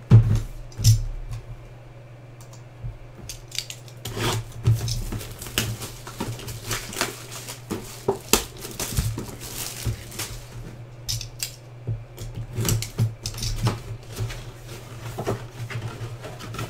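Handling and unwrapping of a shrink-wrapped cardboard mini-helmet box: plastic wrap crinkling and rustling, cardboard flaps and box knocks. Two louder thumps come in the first second, and a steady low hum runs underneath.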